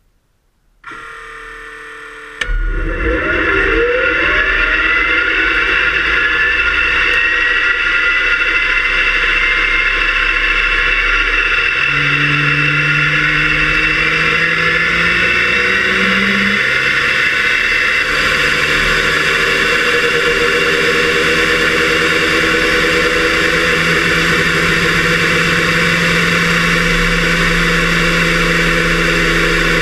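Fairchild J44 turbojet starting and running: a quieter whir comes in about a second in, then a sudden jump in loudness at about two and a half seconds with whines rising in pitch as it spools up, then steady running with held tones. It is heard muffled through a camera's waterproof case bolted to the engine's frame, so gear and shaft vibration carried through the framework comes through more than the jet's exhaust.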